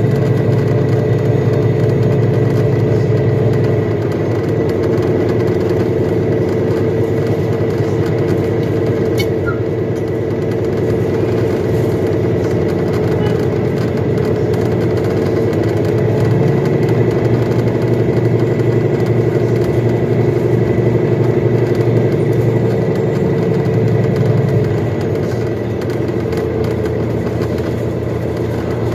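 2021 Nova Bus LFS Hybrid city bus under way, heard from inside: a steady engine drone with a hum from the hybrid drive. The low rumble eases about four seconds in, swells again at about sixteen seconds and eases near the end, and the hum shifts slightly in pitch at each change.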